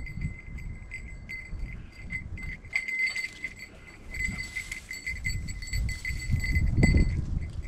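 A hunting dog's collar bell jangling irregularly as the Brittany spaniel works through the cover. Low footsteps and rustling through dry grass and brush sound underneath and are loudest about seven seconds in.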